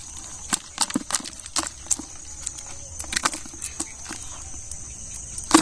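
Freshwater snail shells clicking and knocking against each other as a hand rummages through a heap of them, irregular sharp taps with a louder knock near the end. A steady high insect buzz runs underneath.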